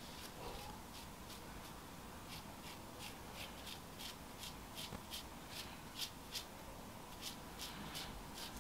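Tint brush stroking bleach paste through short hair: a faint, quick brushing at about three short strokes a second.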